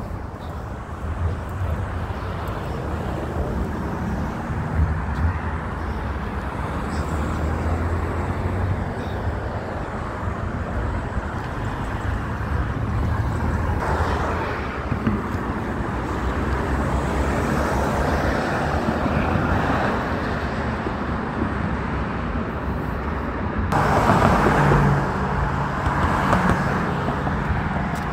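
Steady road traffic noise with a low rumble, growing louder for a couple of seconds near the end.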